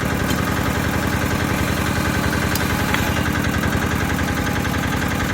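Engine-driven YBM-05DA geotechnical boring machine running steadily, its engine chugging with a fast, even pulse.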